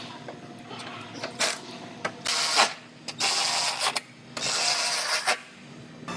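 A power tool runs in three short bursts, each half a second to a second long, over a steady low hum.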